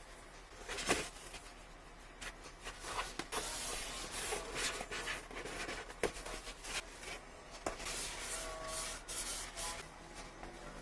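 Packaging being handled by hand: cardboard and plastic rubbing and rustling, with scattered clicks and taps, as a smartphone retail box is opened.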